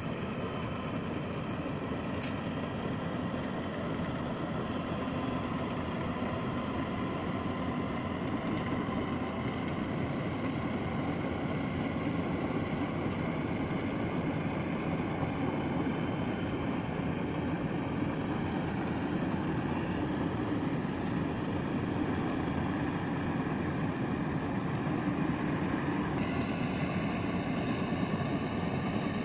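Yanmar 850 rice combine harvester running steadily as it cuts and threshes standing rice. Its diesel engine gives a continuous drone, with a faint steady whine from the machinery above it.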